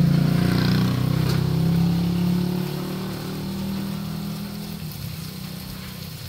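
A motor engine running with a steady low hum, loudest at first and fading after about two and a half seconds. A single metal clink comes about a second in.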